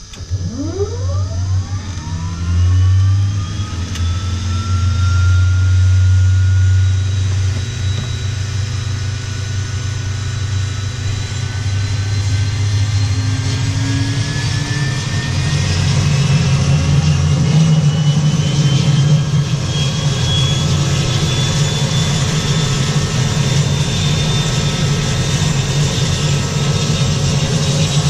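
Air Tractor 402B's turboprop engine and propeller running, heard from the cockpit. A whine sweeps sharply up in pitch in the first couple of seconds, then settles into a steady low drone with high whines that climb slowly.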